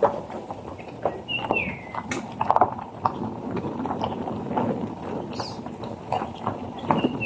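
Birdsong: a clear falling whistle twice, about a second in and near the end, over a busy run of irregular clicks and knocks.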